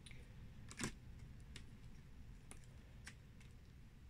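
Near silence with a few faint, short clicks or light taps, the clearest about a second in.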